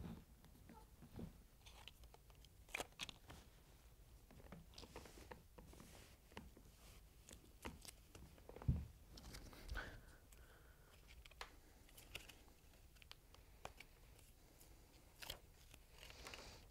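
Faint handling sounds of ECG electrodes and lead wires being attached to a manikin's limbs: scattered small clicks and rustles, with one dull knock about halfway through.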